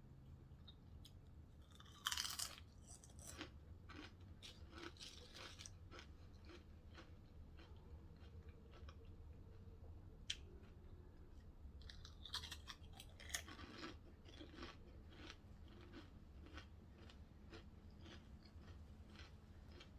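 Close-up chewing and biting into a Subway sandwich, soft crunches and mouth clicks scattered through, with a louder burst about two seconds in and another cluster of crunches around twelve to fourteen seconds. A steady low hum lies underneath.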